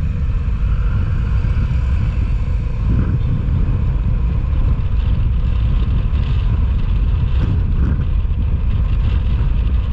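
Motorcycle ridden through traffic, heard through a DIY external microphone on a GoPro Hero 9 Black: a steady, loud low rumble of wind and engine with road noise over it.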